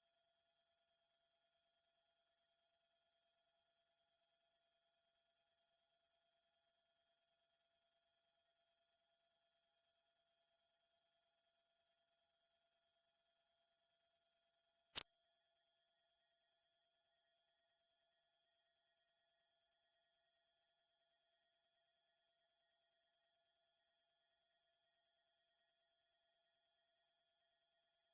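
Dog whistle sound effect: one steady, very loud, very high-pitched pure tone held without a break. A single brief click sounds about halfway through.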